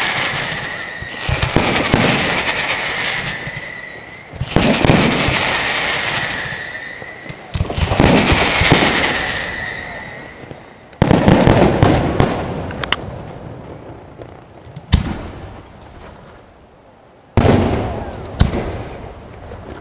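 Aerial firework shells bursting one after another, roughly every three seconds, each bang followed by a long fading crackle. A single sharp crack stands out about 15 seconds in.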